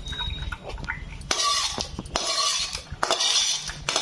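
Steel pot and spatula clinking and scraping against a perforated steel colander as blanched grated bottle gourd and its hot water are tipped in, with water splashing and draining through. Sharp knocks come all through, with short bursts of scraping and splashing.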